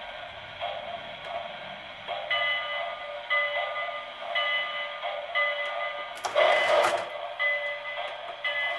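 Lionel RailSounds steam-locomotive sound effects playing from the tender's speaker with the engine in neutral. A short ringing tone repeats about once a second, and a loud burst of hiss comes a little after six seconds in.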